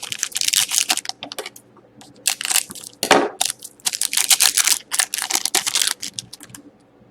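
Crinkling and crumpling of a foil trading-card pack wrapper being handled, in three loud bursts of rustling.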